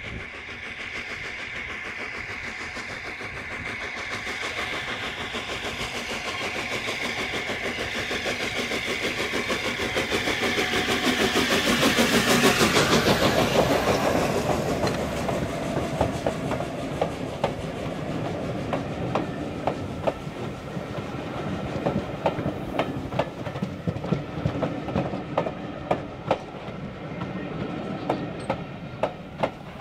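LNER Peppercorn Class A1 three-cylinder steam locomotive hauling a passenger train past at speed: its rapid exhaust beats grow louder as it approaches and are loudest as the engine passes, about twelve seconds in. The coaches then roll by with regular clicks of their wheels over the rail joints.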